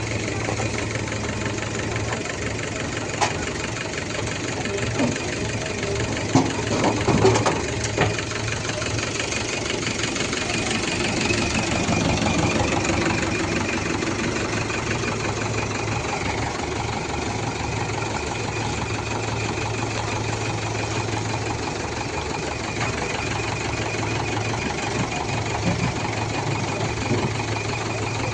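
Heavy machine's diesel engine idling steadily, with a few sharp knocks about six to eight seconds in.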